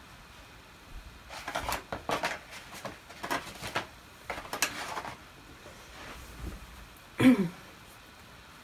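Someone fetching and handling scissors: a run of short knocks, rustles and clatters, then a louder knock with a brief falling squeak about seven seconds in.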